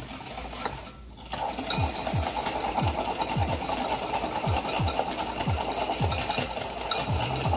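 Wire whisk beating egg yolks and sugar in a glass bowl by hand, a steady rhythmic scraping at about two strokes a second that starts about a second in.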